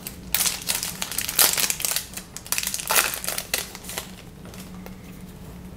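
Crinkling and crackling of a foil trading card pack wrapper being handled and torn open, in quick irregular bursts that die down near the end.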